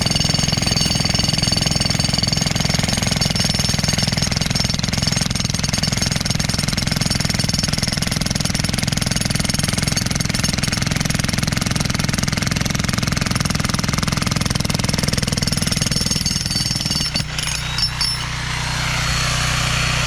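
Bosch GSH16 corded electric breaker hammer running steadily, hammering rapidly as it breaks out a concrete curb. About three seconds before the end it stops with a few knocks, leaving a steady engine hum from the generator that powers it.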